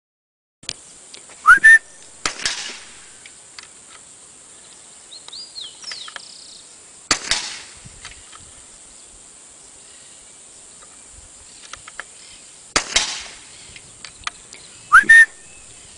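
Three .22LR shots through a Silencer Designs Mosquito suppressor, each a sharp crack with a short tail, about five seconds apart. Near the start and again near the end there is a loud, short, rising whistle-like chirp.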